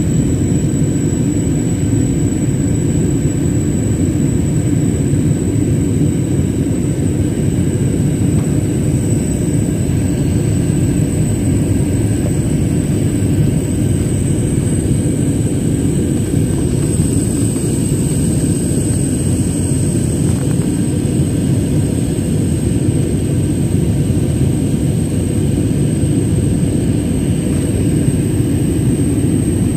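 Steady jet-engine and airflow noise inside the cabin of an IndiGo Airbus A320-family airliner in the climb after takeoff: a constant deep rumble with a thin high whine running over it.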